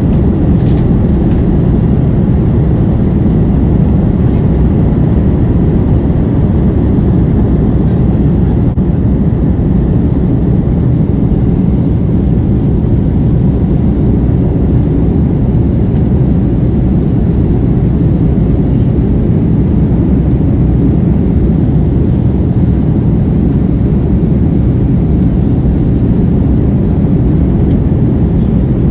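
Jet airliner's engines at takeoff thrust heard from inside the cabin: a steady loud rumble with rushing air as the plane lifts off and climbs.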